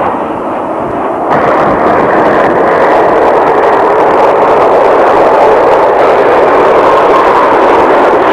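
Jet engines of a low formation of MiG fighter jets flying past: a loud, steady rushing roar that steps up in level about a second in and then holds.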